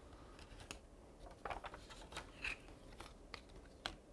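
Faint crisp paper rustles and light clicks as a folded paper airplane wing is handled and creased against a plastic ruler and a plastic card while its dihedral fold is set: a few short sounds scattered through, the sharpest near the end.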